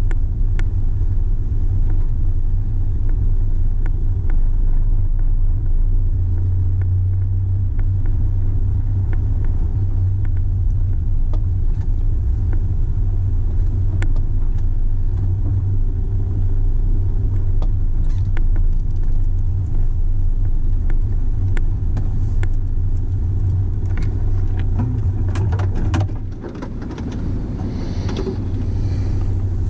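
Car driving slowly: a steady low engine and road rumble with scattered small clicks and knocks. The low rumble eases off about 26 seconds in, and a hissier sound comes up near the end.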